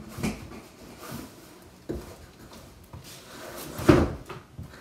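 A long boxed sword being slid out of its cardboard shipping carton: cardboard scraping and rubbing with a few knocks, the loudest about four seconds in.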